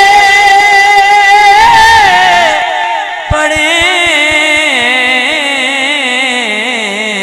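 Male voice singing an Urdu naat-style salam without words, holding one long note with vibrato and then winding into an ornamented, wavering melodic line. A short run of soft low beats, about five a second, sounds under the voice in the middle.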